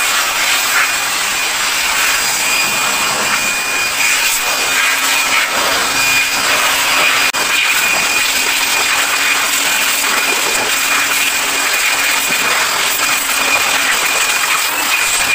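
Handheld electric air blower running steadily: a constant high motor whine over rushing air as it dries the washed engine bay.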